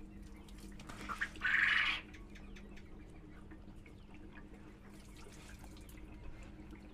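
Water splashing and dripping as the disassembled diaphragm pump head of a 12 V sprayer pump is rinsed by hand. A brief louder gush comes about a second and a half in, and small drips follow.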